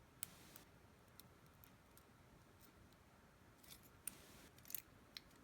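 Faint, scattered metallic clicks and scratches of a lock pick working the pins of a Master Lock No. 150 five-pin padlock, coming a little thicker and louder near the end.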